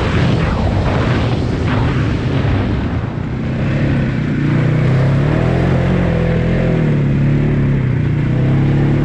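Polaris Sportsman 570 ATV's single-cylinder engine running under throttle on a rough, muddy track. A rushing noise covers it for the first three seconds. From about three and a half seconds in, the engine note comes through clearly, rising and falling with the throttle.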